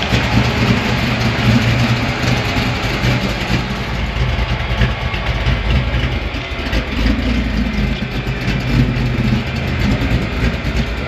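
Engine of a lowered 1950s Chevrolet pickup idling with a steady low rumble as the truck rolls slowly off.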